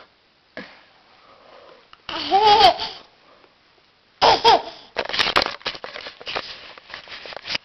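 A small child laughing and babbling in high-pitched bursts: one long laugh about two seconds in, another about four seconds in, then a run of short, choppy laughs.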